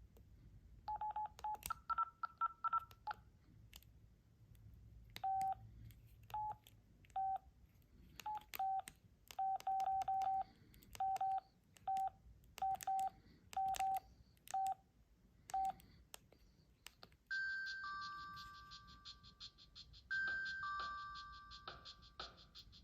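Samsung SPH-A600 phone's keypad: a run of short key-press beeps, each with a button click. About 17 seconds in, one of its preloaded ringtones starts, a simple electronic phrase of a high note stepping down to a lower one that repeats about three seconds later.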